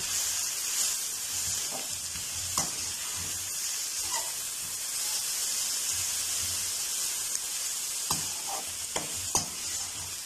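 Freshly added chopped onions sizzling in hot oil in a metal kadhai, stirred with a perforated metal spoon that clinks and scrapes against the pan now and then, most often near the end.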